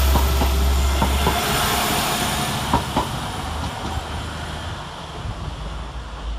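Two coupled Class 172 Turbostar diesel multiple units pulling out and moving away. The engine hum drops off about a second and a half in, wheels click over the rail joints a few times, and the sound fades.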